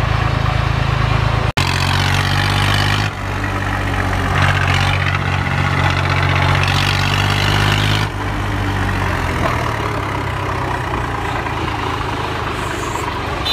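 Farm tractor's diesel engine running steadily while the tractor drives along, heard from on board. The sound breaks off sharply for an instant about a second and a half in, and the engine sound drops a little about eight seconds in.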